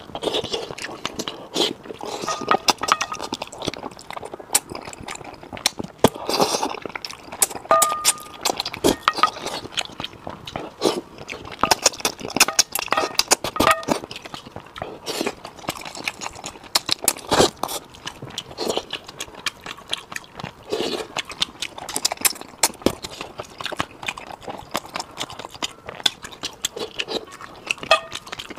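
Close-miked mukbang eating sounds: wet chewing and lip-smacking on braised fish, with frequent sharp clicks and clinks of chopsticks against a metal bowl.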